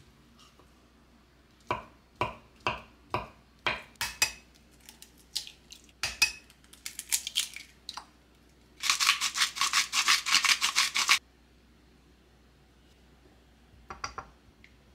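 Kitchen food preparation: a knife chopping on a cutting board in a run of about eight even strokes, then lighter clicks and taps. This is followed by about two seconds of fast, dense scraping strokes that stop abruptly, and a couple of knocks near the end.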